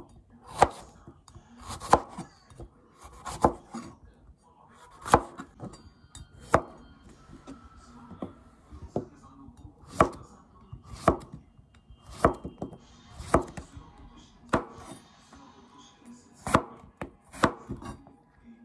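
Kitchen knife slicing a red bell pepper and then a zucchini, each cut ending in a sharp knock on the cutting board. About one unhurried cut a second.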